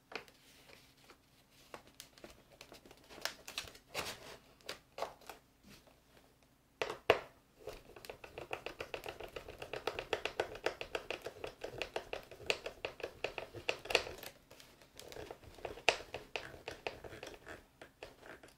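Phillips screwdriver turning an M3 bolt into the stabilizer mount of a foam RC jet: a few scattered clicks and taps, then from about seven seconds in a fast, steady run of small ticks as the screw is driven in.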